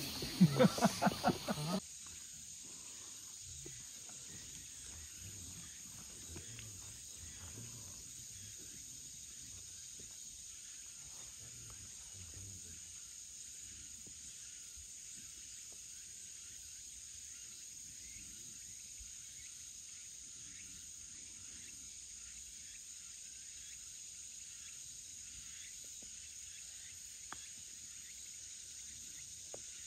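Insects chirring steadily and faintly in a quiet outdoor background. A short loud sound at the start cuts off abruptly about two seconds in, and there are two small ticks near the end.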